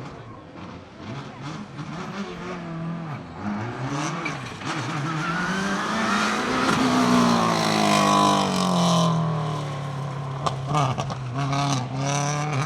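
Subaru Impreza S7 WRC rally car's turbocharged flat-four engine coming up at speed, its note rising, then passing and falling away. A string of sharp bangs and pops comes near the end, typical of the anti-lag system.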